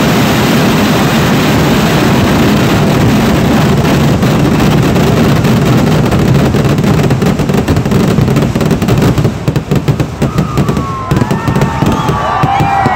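Kerala vedikkettu fireworks barrage: a rapid, continuous string of loud explosions merging into one roar. About three-quarters of the way in it thins to separate sharp cracks, and high gliding whistles rise and fall near the end.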